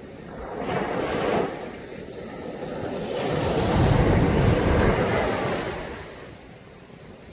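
Caribbean sea waves breaking on a beach: a small wave about a second in, then a larger one that swells to its loudest around four to five seconds in and washes back down.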